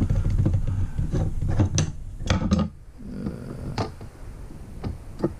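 Rubbing and a scatter of small sharp clicks and taps from a PEX ratcheting crimp tool being handled as its spring-loaded battery holder is pried loose, with low rubbing noise over the first half that then dies down.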